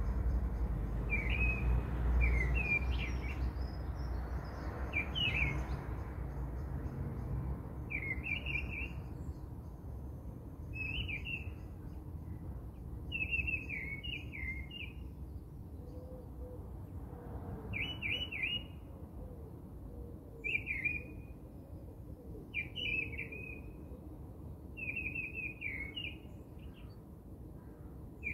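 A bird chirping: a short, quick phrase of high notes repeated about every two to three seconds, over a low rumble that fades after the first few seconds.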